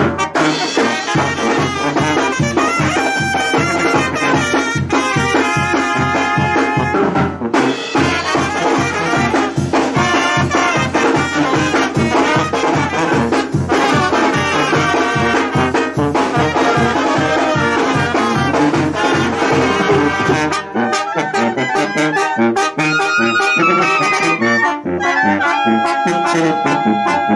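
Mexican banda-style brass music: trumpets and trombones over a steady low beat. About twenty seconds in, the bass and beat drop away and the horns carry on alone.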